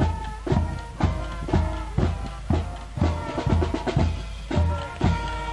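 Marching band playing as it marches past: brass holding sustained notes over a bass drum beating about twice a second.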